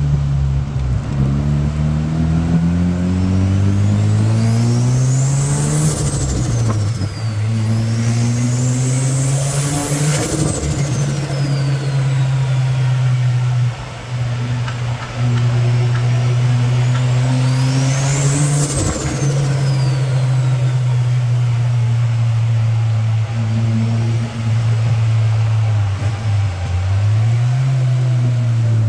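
Turbocharged rotary car engine under way. The revs climb over the first few seconds, drop at a gear change about six seconds in, and then hold a steady note. A high whistle rises and falls three times over the engine.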